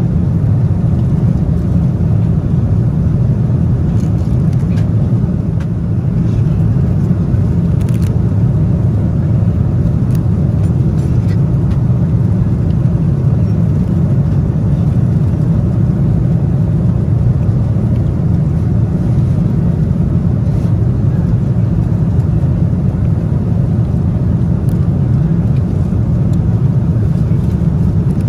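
Steady low rumble of an airliner cabin in flight: jet engine and airflow noise, with a few faint clicks.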